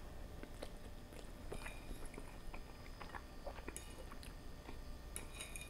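Faint chewing of a mouthful of creamy fettuccine, with small wet mouth clicks. Toward the end a metal fork clinks and scrapes on the plate as more pasta is twirled.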